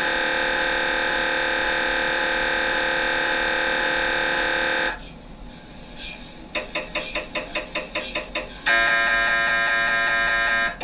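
MRI scanner gradient coils switching through imaging sequences: a loud steady buzzing tone that stops about five seconds in, then rhythmic knocking at about four beats a second, then another loud steady buzz for about two seconds that cuts off near the end.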